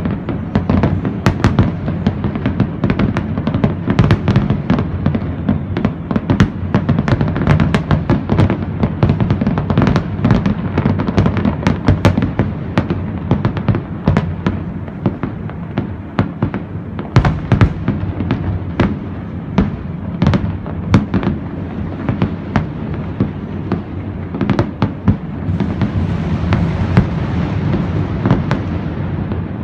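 Fireworks display going off in a dense, continuous barrage of bangs and crackles, with music playing underneath.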